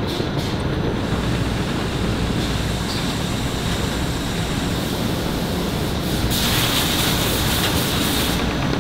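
Filter-paper processing machinery in an oil-filter factory running steadily, a dense mechanical din, with a stretch of hiss about six seconds in that stops shortly before the end.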